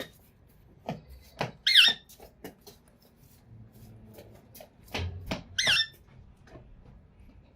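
Indian ringneck parakeet giving two short, shrill calls with a wavering pitch, about four seconds apart, with a few sharp clicks and taps between them.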